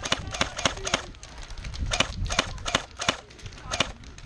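Airsoft guns firing a rapid, irregular string of sharp single cracks, several a second, with a brief lull about a second in.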